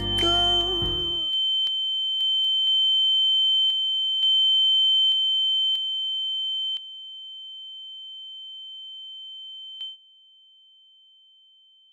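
The song cuts off about a second in, leaving a steady high-pitched pure tone: an ear-ringing sound effect standing for a woman's hearing loss. A fainter, lower tone runs beneath it and stops near the end, and the ringing drops in level about seven seconds in and again near the end.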